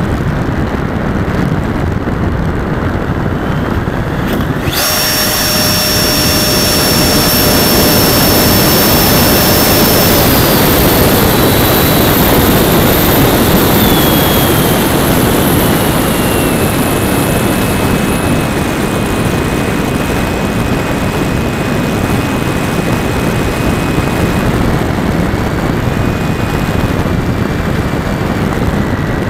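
Electric ducted fan of a Freewing 80mm Avanti S jet, heard close up from the onboard camera behind the fan hatch, over rushing wind noise. About five seconds in the fan jumps up to a loud high whine, then steps down in pitch several times as the throttle is eased back.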